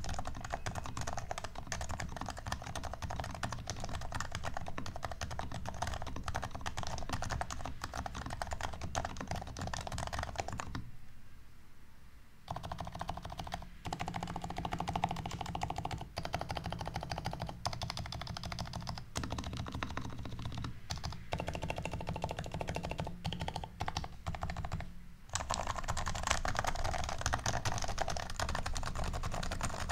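Typing on a custom Topre electro-capacitive keyboard with HHKB Pro2 45 g rubber domes, silencing-ringed sliders and an aluminium plate: a dense stream of thocky keystrokes. About eleven seconds in it stops for a second or so, then the modifier keys are pressed.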